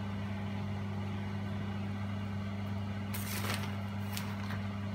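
A steady low hum, with a couple of faint brief rustles about three and four seconds in.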